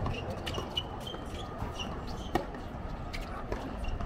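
Tennis ball struck by rackets during a doubles rally on a hard court: sharp hits every second or so, the loudest about two and a half seconds in. Sneakers squeak on the court surface in the first half, over a low crowd murmur.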